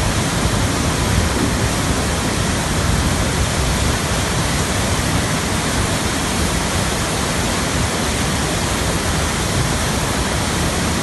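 Swollen floodwater rushing by in a steady, loud, unbroken torrent.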